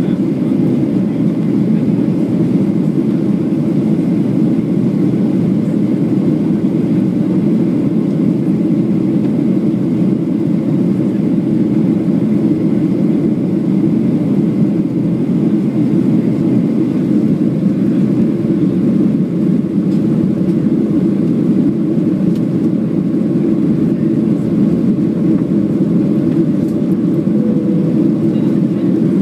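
Steady engine and airflow noise of a Boeing 737-800 in flight, heard inside the passenger cabin as an even, low noise.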